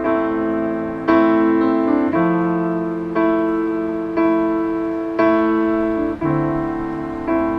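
Slow solo piano music: sustained chords struck about once a second, each ringing and fading before the next.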